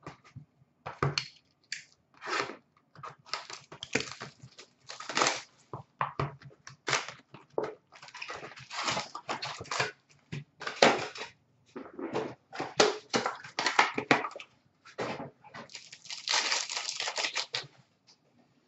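Packs of 2018-19 Upper Deck Ice hockey cards being torn open by hand, their wrappers crinkling, while the cards are flicked and shuffled: a run of irregular crackles and rustles, denser near the end.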